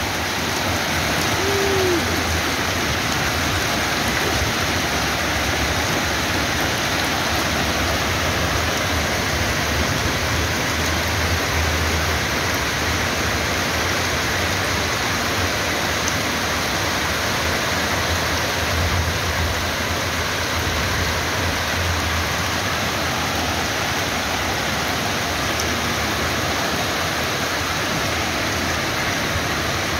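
Heavy downpour of rain and hail falling steadily, an even unbroken hiss.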